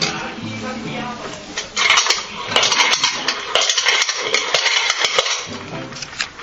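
Pump-action toy spinning top being pumped by hand: its plunger rattles with dense, fast clicking strokes. Near the end the pumping stops and the top spins free, and the sound drops away.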